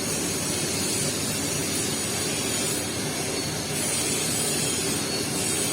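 Steady hiss and hum of TIG welding on stainless-steel pipe, the arc and welding equipment running continuously, with the high hiss swelling and easing a few times.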